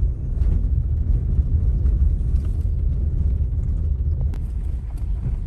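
Steady low rumble of a car driving, heard from inside the cabin, with a faint click or two near the end.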